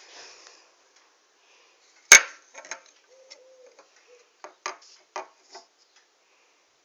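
Handmade wooden toy revolver being worked: one sharp wooden snap about two seconds in, the loudest sound, then a string of lighter clicks and knocks from its mechanism.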